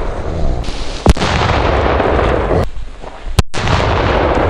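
Two P1 firecrackers going off: a Klasek DumBum about a second in, then a Tropic Exploder 4 about three and a half seconds in. Each is a single sharp bang followed by a long noisy tail.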